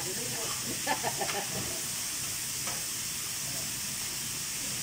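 Chopped bell peppers and onions sizzling with a steady hiss in a hot steel pan as they are stir-fried with a spatula, with a few short clinks of the spatula on the metal about a second in and again near the end.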